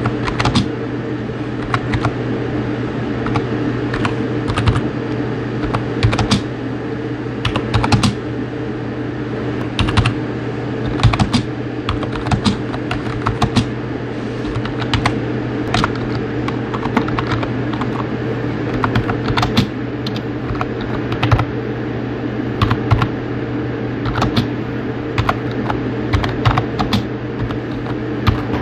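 Fast typing on a mechanical keyboard: a continuous run of key clacks with some sharper, louder strikes, over a steady low hum.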